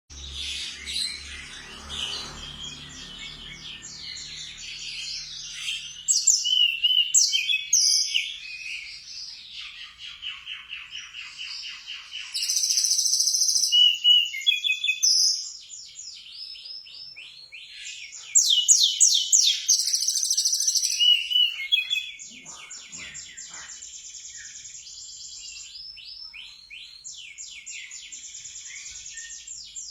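A tledekan gunung songbird singing in runs of rapid high trills and chirps, with song phrases copied from the sikatan londo. Its loudest passages come about six, twelve and eighteen seconds in, with softer twittering between them.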